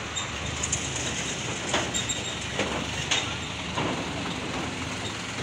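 Heavy trucks' diesel engines running, with a series of irregular clanks and knocks, roughly one every half second to second.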